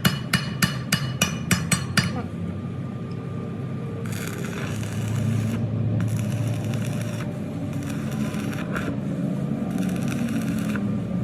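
A hammer strikes steel about three times a second, each blow ringing, and stops about two seconds in. Then a steady machine hum runs with several separate bursts of hissing.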